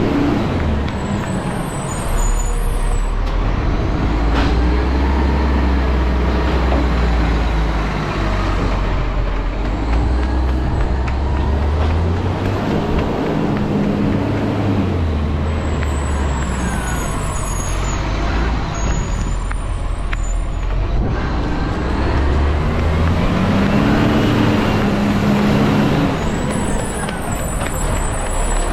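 Garbage truck's diesel engine running, its pitch rising and falling several times as it revs and pulls away. A brief high-pitched hiss or squeal comes three times: near the start, about halfway through and near the end.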